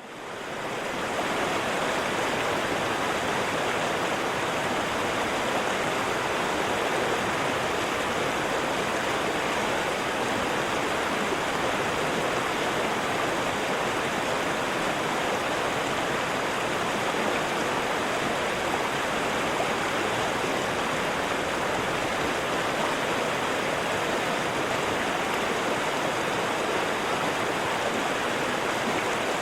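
Waterfall: a steady, dense rush of falling water, fading in over the first second and then holding level.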